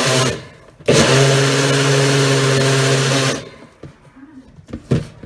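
NutriBullet blender motor blending a fruit shake: it stops briefly, restarts with a click, runs steadily for about two and a half seconds, then cuts off. A few light knocks follow.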